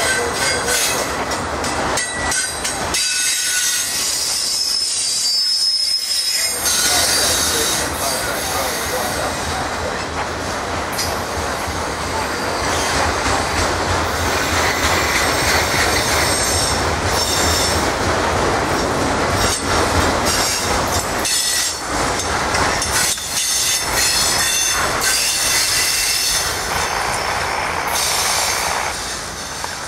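Autorack freight train rolling past at close range: steady rumble and clatter of steel wheels on rail, with thin high wheel squeals now and then. The sound drops off near the end as the last car goes by.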